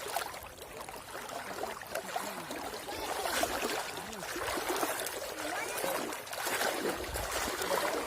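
Shallow seawater sloshing and trickling as someone wades through it, with the splashing busier from about three seconds in and again near the end.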